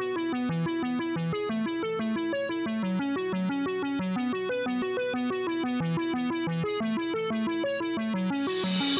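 Electronic music: a synthesizer playing a fast, repeating keyboard arpeggio, with a swell of noise rising near the end.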